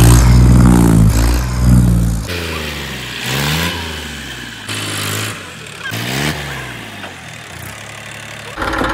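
Tractor engine revving, loud and deep at first, then revved up and let fall again several times in quick rising-and-falling sweeps.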